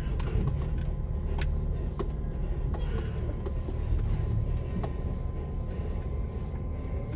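Cab interior of a fully electric refrigerated truck moving off at low speed: a low, steady rumble of tyres and drivetrain with no engine note, a faint steady hum, and scattered light clicks and rattles.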